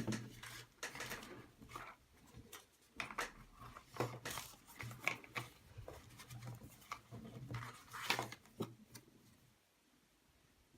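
Irregular handling noise: rustling and light clicks of packaging and a phone being handled, in bunches with short pauses and a quieter stretch near the end, over a faint low hum.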